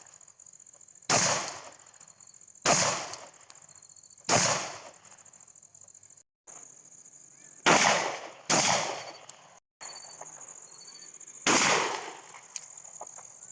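Six single gunshots from a firearm at target practice, fired one at a time at uneven gaps of roughly one to three seconds, each with a short echoing tail.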